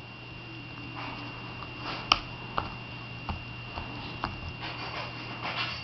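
Small dog chewing a tennis ball: irregular sharp clicks of teeth on the ball, about one every half second from about two seconds in, with soft snuffling breaths.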